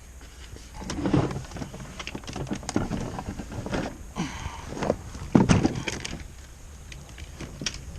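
Tools and materials being handled: scattered knocks, clicks and rustling, with one sharper knock about five and a half seconds in.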